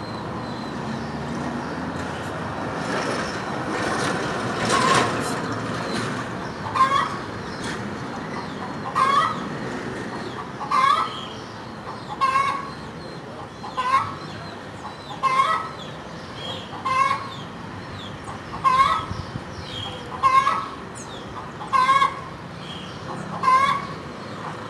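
Domestic hen cackling after laying an egg: a run of about eleven loud squawking calls, one every one and a half to two seconds, starting about seven seconds in. In the first few seconds a rushing noise swells and fades.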